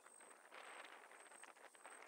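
Near silence: faint outdoor ambience of soft rustling and small crackles, with a high, thin tone pulsing about three times a second.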